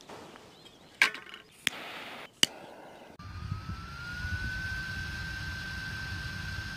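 Three sharp clicks in the first few seconds, then, after a sudden cut, a power-bank-driven fan wood stove running: the small fan's whine rises a little in pitch and then holds steady over a low rumble of fan-forced flames.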